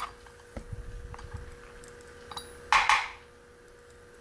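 Small metal clicks and clinks of lock pins and steel tweezers being handled over a plastic pinning tray while a mortise cylinder is taken apart. There is a sharp click at the start, a few faint ticks after it, and a short louder clink about three seconds in, over a faint steady hum.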